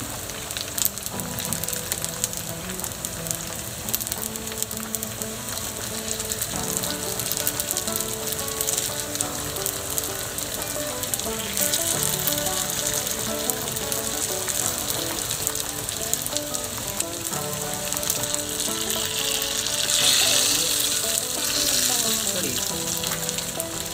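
Gyoza frying in oil in a frying pan, with a continuous sizzle that swells louder about twenty seconds in.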